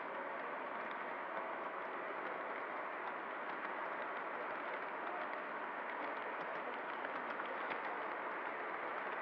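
O scale model tank train running on three-rail track, heard from a camera riding on one of its cars: a steady rolling rumble from the wheels and track, with faint irregular clicks.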